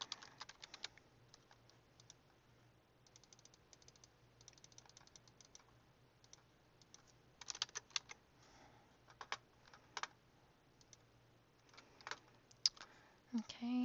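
Typing on a computer keyboard in short bursts of rapid light key clicks, with a few separate louder single clicks in between.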